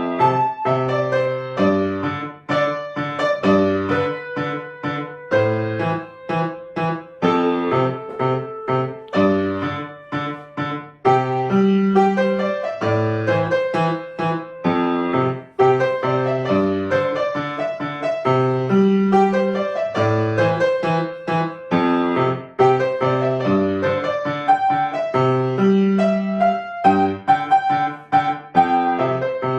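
Solo piano playing a piece: a low bass line of notes under a melody in the middle register, steadily throughout.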